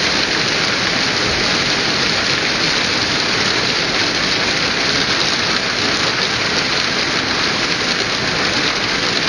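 Hail pelting down on stone paving and a lawn: a dense, steady clatter of countless small impacts.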